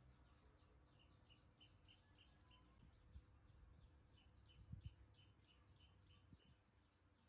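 Near silence, with faint, rapid chirping, about three to four short chirps a second, that pauses briefly in the middle and fades near the end. A couple of soft low thumps come in the middle.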